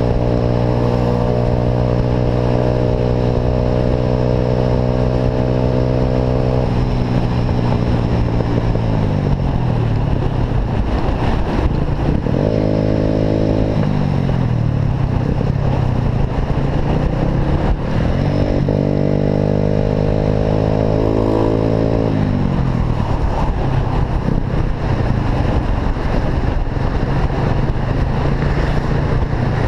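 Motorcycle engine running through an Atalla aftermarket exhaust on the move, over a constant rush of noise. It holds a steady note for the first several seconds, then drops in pitch as it slows. Twice more it picks up briefly and falls away.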